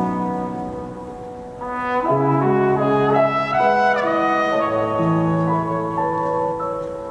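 Trumpet playing a slow, lyrical solo melody of long held notes over sustained chords from the band.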